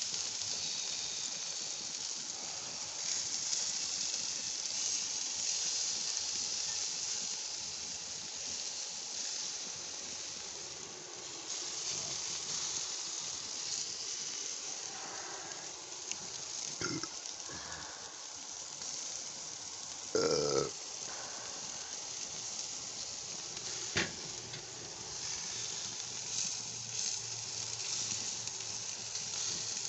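Barbecue-sauced chicken drumsticks sizzling on a grill grate, a steady hiss. A few short clicks come through it, and a brief clatter about twenty seconds in is the loudest sound.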